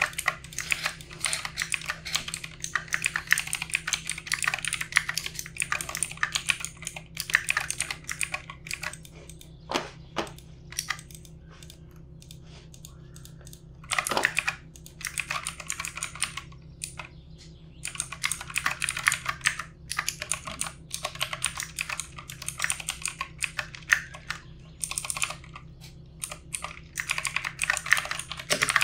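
Keystrokes on a computer keyboard, typed fast in bursts, with a lull of a few seconds near the middle broken by only a few single key presses. A faint steady hum runs underneath.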